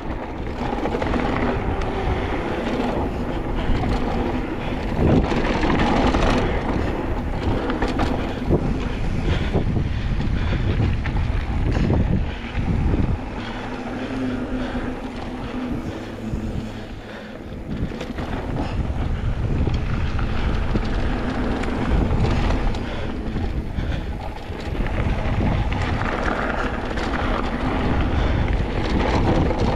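Wind buffeting the microphone over a steady low rumble; it eases briefly a little past halfway through.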